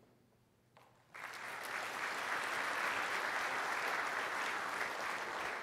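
Audience applauding, beginning about a second in and easing off near the end.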